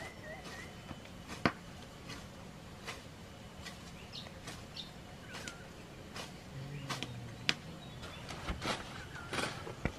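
Machete slashing through tall grass and weeds, a sharp cut every second or so at an irregular pace.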